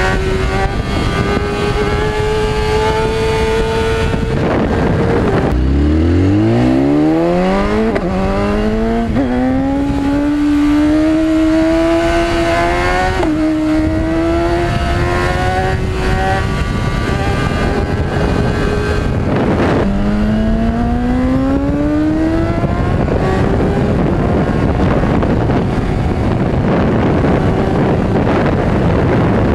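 Sportbike engine heard from the rider's seat, climbing in pitch as it accelerates and dropping back at each gear change, with steady wind rush over the bike.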